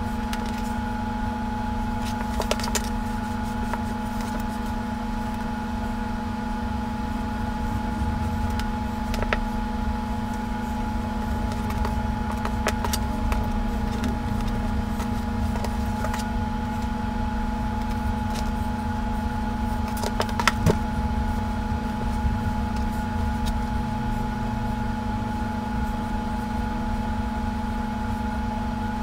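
Steady machine hum made of several constant tones over a low rumble, with a few faint short clicks scattered through it, the loudest about two-thirds of the way in.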